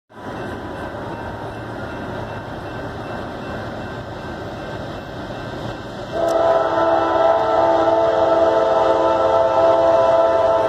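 CSX freight locomotive's multi-chime air horn sounding one long, steady chord, starting about six seconds in, over the steady noise of the approaching train.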